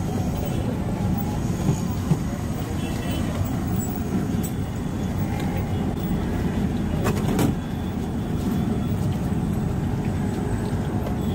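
Steady roadside traffic noise, a low rumble of passing vehicles, with faint voices and a couple of sharp clicks about seven seconds in.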